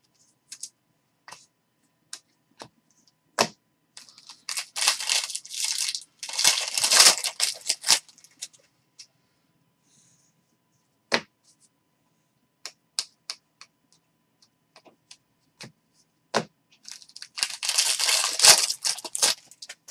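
Scattered clicks and snaps of trading cards being handled, with two long bursts of tearing and crinkling. The one near the end is a Bowman baseball card pack's foil wrapper being torn open.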